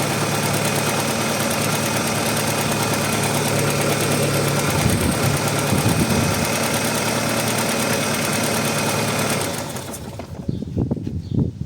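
Audi 80 B4's two-litre four-cylinder petrol engine idling steadily soon after a cold start, then shut off about nine and a half seconds in.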